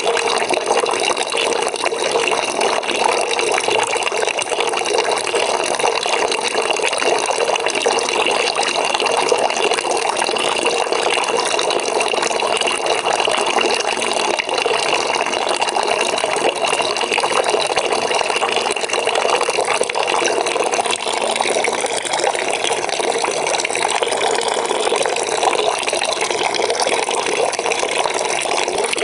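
Water pouring from a tap into a bucket, filling it: a steady, continuous splashing rush with no breaks.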